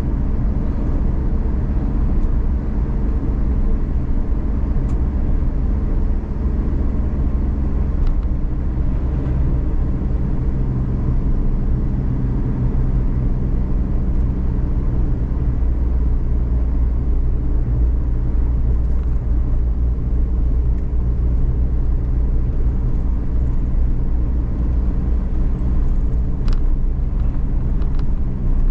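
Inside the cabin of a Suzuki Every DA17V kei van with a 660 cc three-cylinder engine and 5AGS automated manual gearbox, on the move: a steady low engine drone and road rumble. A few faint clicks come near the end.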